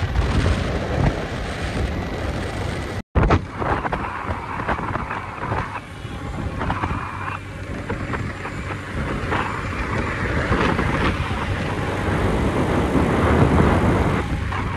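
Wind buffeting a phone's microphone on a moving motorbike, with a steady rush of road and vehicle noise. The sound cuts out for an instant about three seconds in.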